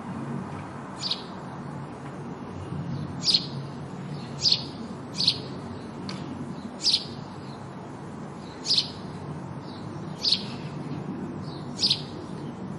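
House sparrow chirping: eight short, sharp single chirps at irregular intervals of one to two seconds, over a steady low background rumble.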